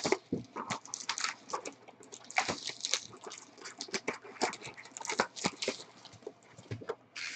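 Irregular crinkling and rustling of packaging, with quick crackles and scrapes at an uneven pace, as sealed trading-card boxes and packs are handled and opened.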